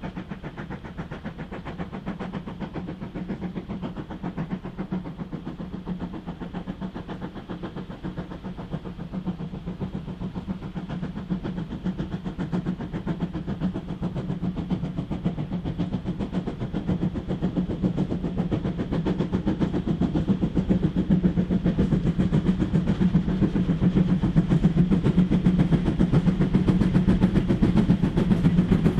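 A steam train approaching, its running sound with a fast, dense beat growing steadily louder.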